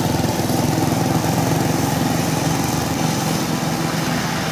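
Isuzu 93 diesel engine of a homemade tracked rice tractor running steadily as it drives along, with a rapid, even beat.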